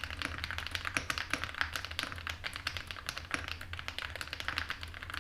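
Fast, continuous typing on a custom zoomTKL mechanical keyboard with an aluminum plate, Akko Snow Blue Grey switches and Osume Winterglow Eve keycaps, many quick key clicks a second, with a low steady hum beneath.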